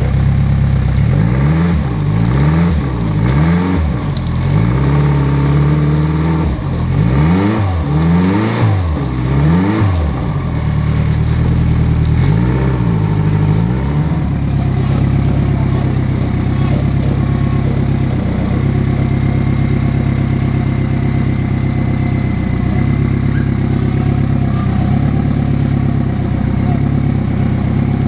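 Rock-crawling buggy's engine revved in repeated short throttle blips, each rising and falling in pitch, while the buggy works up a steep rock face. About halfway through the revving stops and the engine settles into a steady idle.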